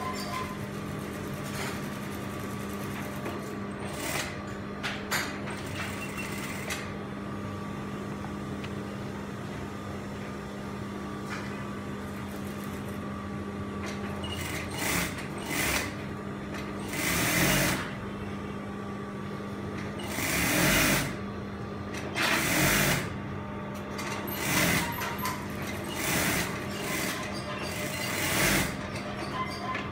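Industrial lockstitch sewing machine: a steady motor hum, broken in the second half by a run of short stitching bursts, each a second or less, as fabric is fed under the needle.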